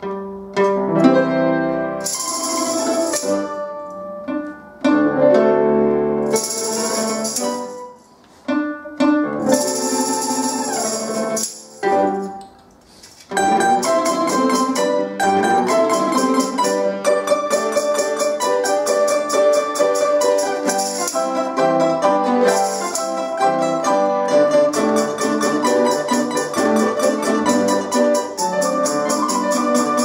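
Domra ensemble with piano accompaniment playing an arrangement of a Russian folk song, the domras plucked rapidly. In the first half the music comes in short phrases with brief pauses between them, punctuated by bursts of tambourine jingles; from a little before halfway it runs on unbroken, fast and dense.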